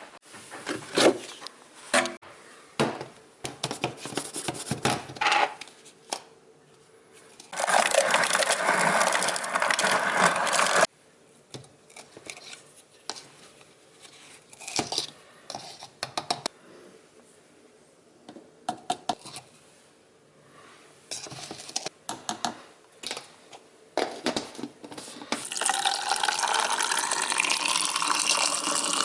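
Clinks and knocks of dishes and small objects, with a water tap running for a few seconds, stopping abruptly, and then running again steadily near the end.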